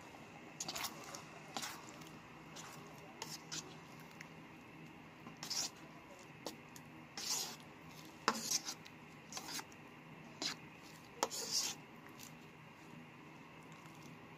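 A wooden spatula stirring thick tomato sauce in a nonstick frying pan, with irregular scrapes and knocks against the pan, over a faint steady hum.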